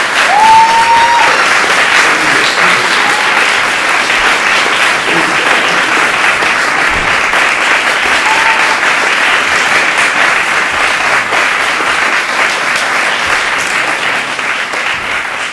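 Audience applauding, a steady, dense clapping that holds throughout, with a short rising tone about half a second in.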